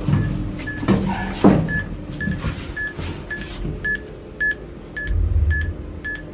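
Electronic beeping, about two short beeps a second, steady in pitch. A few knocks come near the start, and a low rumble follows about five seconds in.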